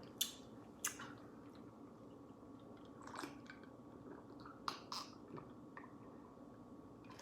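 A few quiet gulps and lip sounds of a person drinking, spaced out with near-quiet between them.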